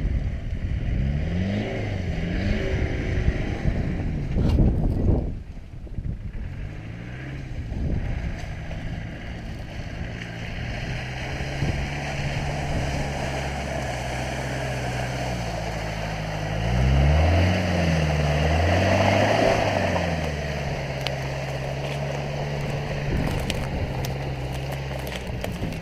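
Land Rover Discovery's 2.5-litre 300Tdi four-cylinder diesel pulling off-road, revving up and falling back twice and running steadily in between. A loud rushing noise lies over it for the first five seconds, then cuts off.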